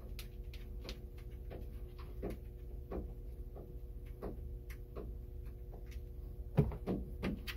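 Irregular light metallic clicks, about one or two a second, of a 10 mm open-end wrench being set on and turned against the alternator's terminal nut, with a louder knock near the end, over a steady low hum.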